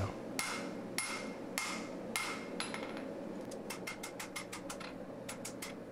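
Hand hammer striking red-hot steel on an anvil: about five blows a little over half a second apart, each with a short ring, then a run of quicker, lighter taps. The handle of a knife forged from an old rasp is being shaped.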